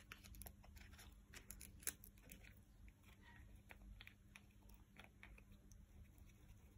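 Faint, scattered clicks and crunches of a green-winged macaw's beak breaking into a walnut shell held in its foot, with one sharper crack about two seconds in.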